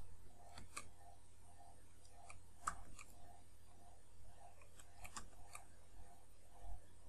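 Computer keyboard keys clicking as a command is typed, a few scattered keystrokes at a time, over a faint low hum and a soft blip repeating about twice a second.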